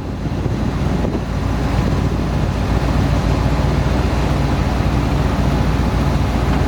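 1969 Corvette's 350 cu in V8 idling steadily.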